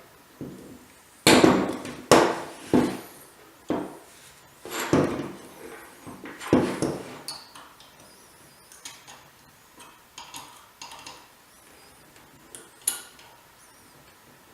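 Steel parts of a Neiko power hole punch knocking and clinking as a punch is fitted into its holder: about six sharp metal knocks in the first seven seconds, then lighter clicks and taps, with one sharp click near the end.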